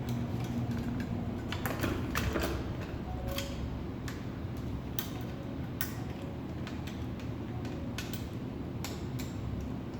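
Scattered light clicks and taps at irregular intervals, about a dozen, from small parts being handled during assembly of a clay 3D printer, over a steady low hum.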